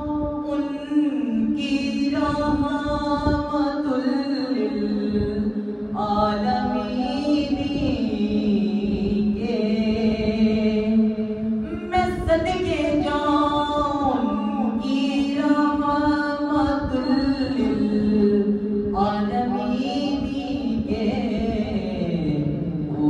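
A young man's voice singing a naat unaccompanied, holding long notes that step and slide from one pitch to the next.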